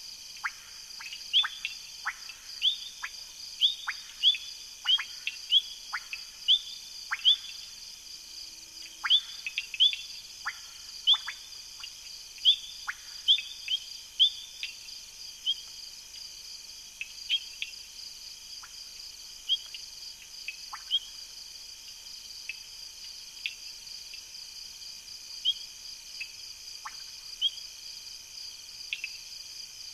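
Night chorus of frogs and insects. Many short, sharp calls drop quickly in pitch, coming thick and fast at first and thinning out after about halfway, over a steady, pulsing high insect trill.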